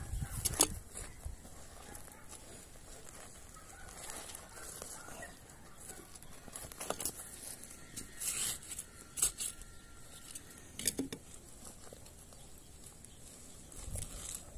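A hand trowel digging and scraping in gritty soil while cabbage plugs are planted, heard as a few short scrapes and taps, with chickens clucking.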